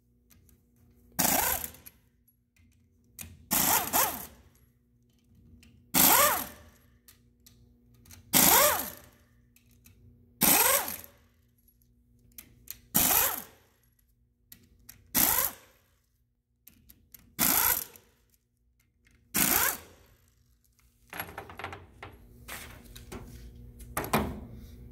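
Cordless power driver with a socket extension backing out the 9/16-inch bolts of a Ranger pump's drive-side end plate: about nine short bursts of the motor spinning, one every two seconds or so. Near the end, lighter clatter of loose metal bolts being handled.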